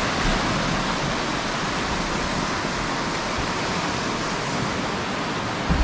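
Floodwater of a swollen river rushing past in a steady, even roar, the river running high after rain and snowmelt. A brief low thump near the end.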